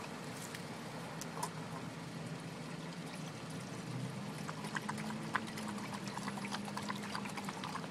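Water poured from a plastic bottle into a stainless steel dog bowl, its pitch rising from about halfway through as the bowl fills. Small clicks and splashes in the second half as the dog drinks at the bowl.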